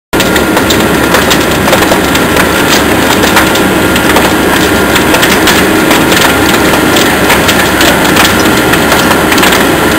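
A fully involved house fire burning, with dense, constant crackling and popping over a steady rushing noise and a faint steady tone underneath.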